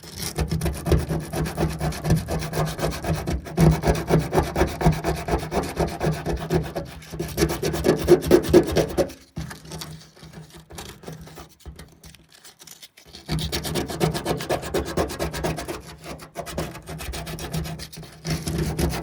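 Hand sanding paint off an aluminum boat hull around a rivet, down to bare metal, with quick back-and-forth rubbing strokes. The rubbing stops for about three seconds around the middle, then starts again.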